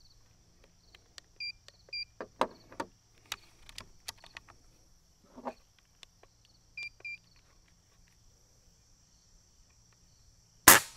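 Digital trigger-pull gauge beeping in two quick pairs, with small handling clicks and knocks as it is set against the air rifle's trigger. Near the end comes a single sharp click as the trigger is pulled through and breaks.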